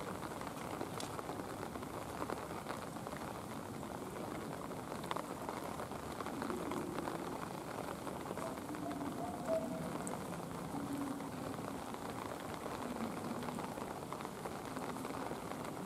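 Steady rain falling, an even hiss throughout, with a few faint short tones in the middle.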